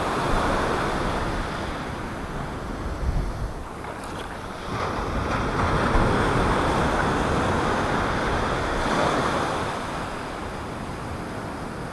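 Ocean surf breaking and washing up the sand, swelling and easing several times, with wind buffeting the microphone.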